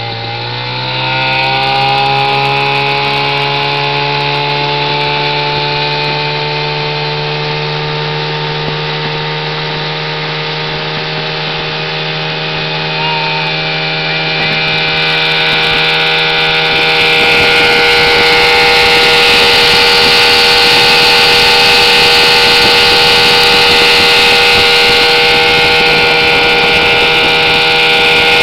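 1963 Johnson 5.5 hp Seahorse twin-cylinder two-stroke outboard opened up to full throttle: its note climbs over the first couple of seconds, then it runs steadily at speed. A hiss grows louder in the second half.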